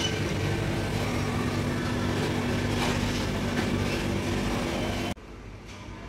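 Steady mechanical hum and background noise of a shop interior, cutting off abruptly about five seconds in.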